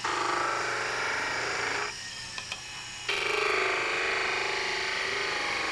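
Skew chisel cutting a bead into a spinning wooden spindle on a mini lathe: two long cuts, the first about two seconds long and the second from about three seconds in until near the end. The lathe's motor hums steadily in the short pause between them.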